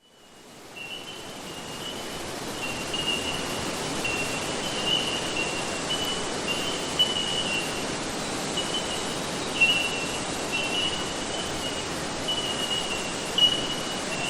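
Steady rushing and trickling of rainforest creek water, fading in over the first couple of seconds, with a thin high-pitched buzz running on and off above it.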